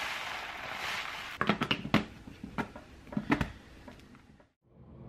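Uncooked rice grains pouring from a bag into a plastic storage container, a steady hiss that fades out about a second in. Then several clicks and knocks as the plastic container and its lid are handled on a stone countertop.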